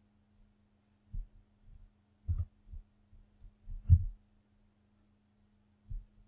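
Computer mouse clicks and keyboard taps, about half a dozen scattered short clicks and soft thumps, over a faint steady hum.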